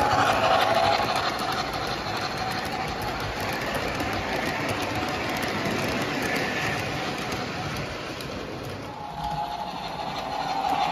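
MTH model train (steam locomotive and freight cars) rolling past on its track, wheels clattering, loudest at the start and easing off about eight seconds in.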